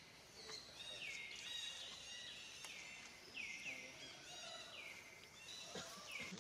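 A bird calling over and over, faint: short high notes that each drop quickly in pitch and level off, about two a second.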